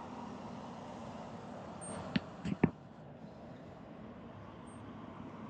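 Steady wind rushing over the microphone, broken a little after two seconds in by three quick, sharp knocks.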